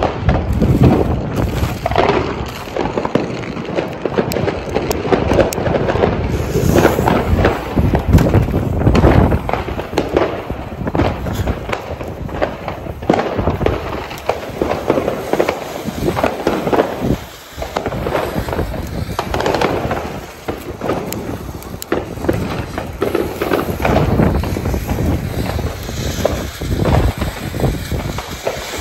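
Fireworks going off: a ground fountain spraying sparks, with dense, irregular crackling and many sharp bangs.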